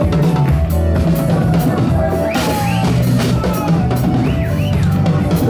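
Music driven by a drum kit, with bass drum and snare hits over a steady backing.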